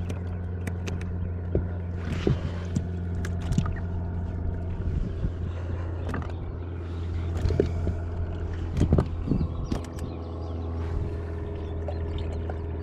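A boat motor running at a steady low hum, with scattered clicks and knocks on top.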